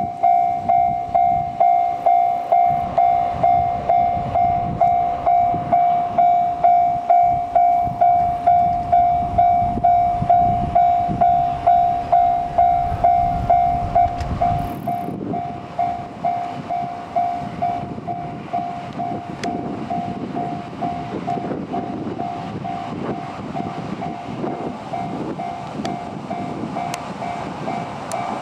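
Japanese level-crossing warning bell ringing in quick, even strokes about twice a second, over the rumble of a passing KiHa 85 series diesel express railcar. About halfway through the bell becomes fainter.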